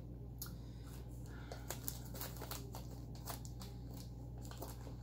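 Irregular crinkling and rustling with many small clicks as rolls of washi tape and their packaging are handled and unwrapped.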